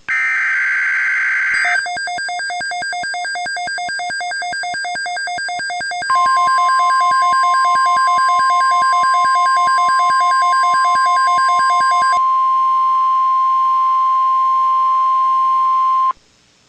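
NOAA Weather Radio emergency alert tones. It opens with the last of a screechy data burst, then a fast electronic beeping. Then comes the steady 1050 Hz weather-radio warning alarm tone, which lasts about ten seconds and cuts off suddenly.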